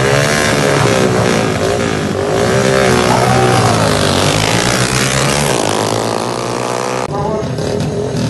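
Several motorcycle engines revving hard with wavering pitch as bikes launch off a drag-race start line and accelerate away. The sound drops off abruptly about seven seconds in.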